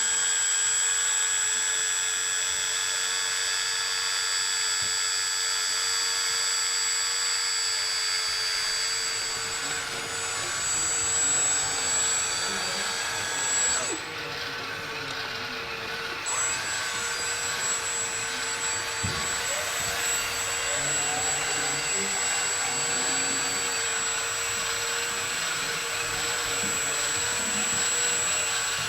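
Small electric motors and gearboxes of radio-controlled scale trucks and construction machines running, a steady whine with motor noise that shifts in pitch as they drive and work.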